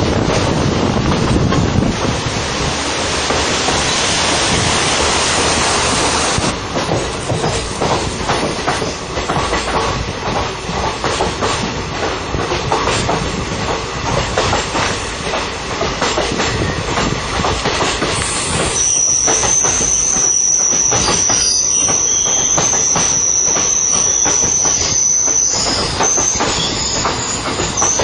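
Train running with its carriages clattering over the rails. About two-thirds of the way through, a steady high-pitched wheel squeal starts and continues to the end.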